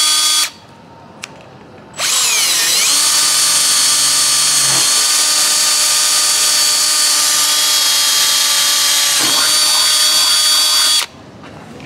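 Cordless drill boring a pilot hole through a thin painted rear spoiler. A short whirr stops about half a second in. After a pause comes a long steady whine that dips in pitch as the bit bites, then holds, and stops about a second before the end.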